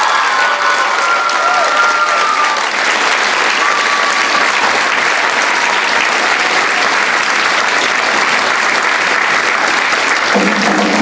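Theatre audience applauding at the end of a musical number. Near the end the pit orchestra starts playing again.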